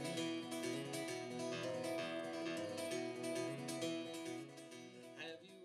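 Acoustic guitar music, plucked and strummed chords from a country song, fading away near the end.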